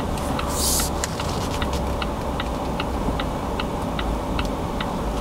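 Volvo XC90's turn-signal indicator ticking steadily, about two or three clicks a second, over the low rumble of the car's cabin as it creeps along. There is a brief hiss about half a second in.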